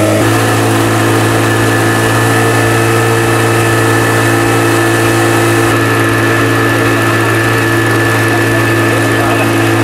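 Outboard boat motor running at a steady speed, a loud, even drone.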